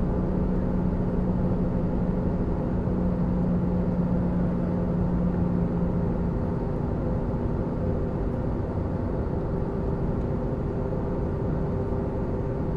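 Airbus A320 cabin noise in flight while descending: a steady rumble of engines and airflow. A low hum fades out about halfway through, and a higher hum comes in after it.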